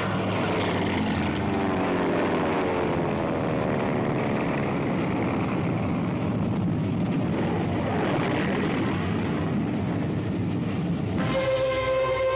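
Propeller fighter planes flying past in formation, their piston engines droning, with the pitch sliding down and up as planes pass. About 11 seconds in, music starts.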